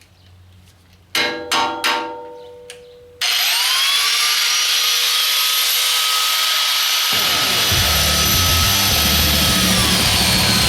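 Three ringing metallic clanks, like steel being struck, just over a second in. Then music cuts in abruptly with rising tones that hold steady, and a heavy bass and drum beat joins about seven seconds in.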